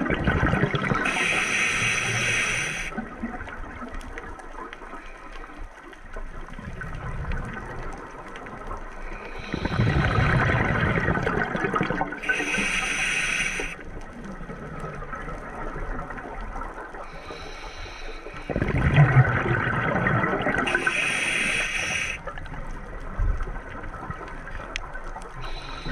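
Scuba diver breathing through a regulator underwater: the bubbling of each exhaled breath and a hissing inhale. There are three breath cycles, roughly nine seconds apart.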